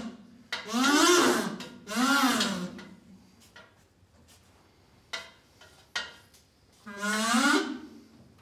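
Three drawn-out wordless vocal calls, each rising and then falling in pitch: two close together in the first couple of seconds and one near the end, with a quiet stretch and two light knocks between them.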